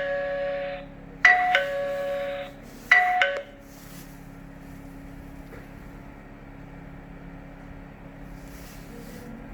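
Wireless video doorbell's electronic chime playing its ding-dong tune, three phrases of clear bell-like notes in the first three and a half seconds, the last one cut off short. After that only a faint steady low hum remains.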